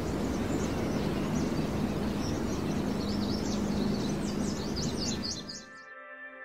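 Outdoor nature ambience: small birds chirping and twittering over a steady background noise, the chirps busiest toward the end before the whole sound fades out.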